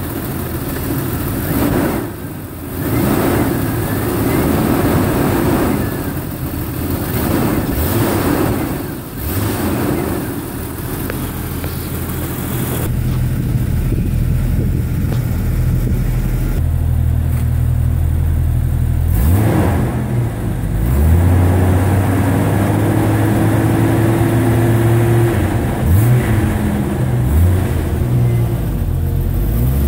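Jeep Cherokee XJ engine running just after a cold start, revved up and down several times. It settles into a steadier run about halfway through, with a few short rises and falls in pitch near the end.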